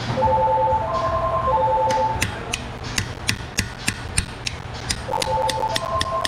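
A hammer tapping a steel chisel against the drilled-out shell of an over-torqued lug nut, working it around the wheel stud to back it out. The sharp metallic taps start about two seconds in and come about four a second. A simple melody of held notes plays at the start and again near the end.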